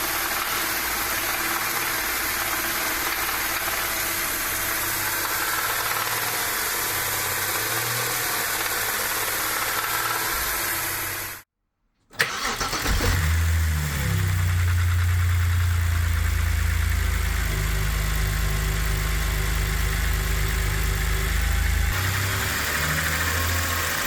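BMW N52 straight-six engine starting about halfway through, catching and then idling steadily. The first half, before a brief cut to silence, holds a steady running noise with a hiss.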